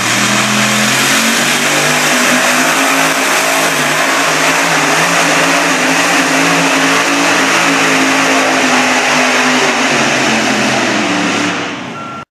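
Engine of a competition pulling vehicle running hard under load on a pull: a steady, heavy drone with a hiss of noise over it. It eases off near the end.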